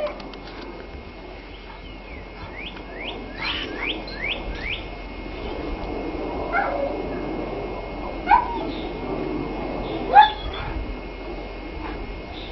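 Alaskan Malamute puppies calling: a run of short, high, rising squeaks, then three short, sharp yelps about two seconds apart.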